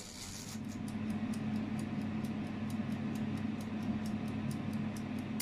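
Tefal air fryer running with a steady fan hum while its mechanical timer dial ticks rapidly, several ticks a second, counting down the cooking time. A bell dings right at the end.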